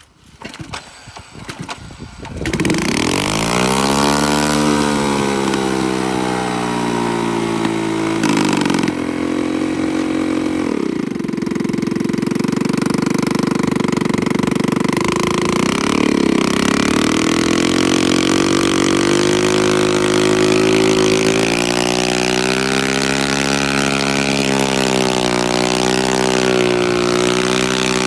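Small step-through motorbike engine being started. It catches about two and a half seconds in, is revved up and down a few times, then runs steadily.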